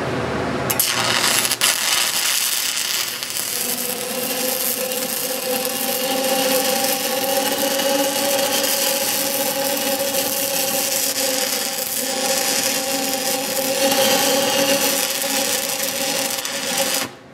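Stick-welding arc crackling and hissing steadily as a root pass is run in a beveled pipe joint at about 96 amps, cutting off abruptly near the end when the arc is broken. The gap has been ground a little too wide, so the root is burning away.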